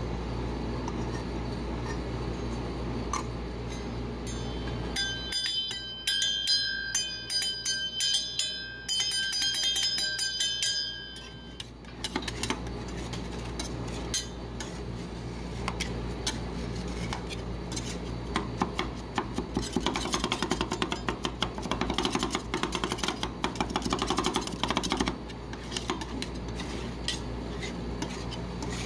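Metal spatulas chopping and scraping on a rolled-ice-cream cold plate, working cereal into the cream base. About five seconds in come fast taps with a high ringing metallic tone for several seconds, followed by a long run of rapid chopping and scraping. A steady low hum lies under the first few seconds.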